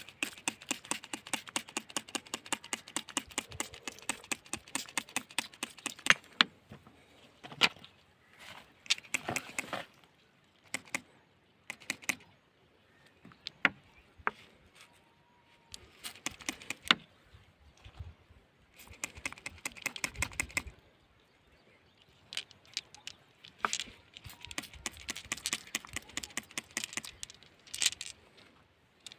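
Small stones and gravel clicking and rattling in bursts of rapid clicks, with a few louder single knocks and short pauses between.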